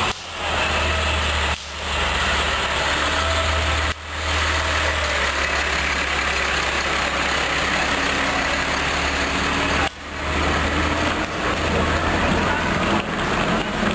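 Heavy dump truck's engine running low and steady as it rolls slowly past, under a constant rushing noise, with a few brief dips in the sound.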